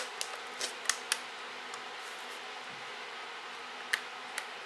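Light clicks and taps from a Yashica 35 mm camera body being turned and handled with its bottom plate off, a cluster in the first second or so and two more near the end, over a steady faint hiss.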